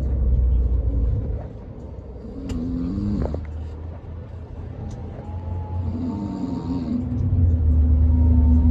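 Scania K440 coach's diesel engine rumbling, easing off about a second in and building back up near the end.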